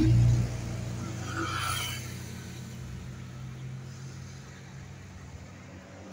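A motor vehicle's engine hum as it passes on the street, loud at first and fading steadily as it drives away.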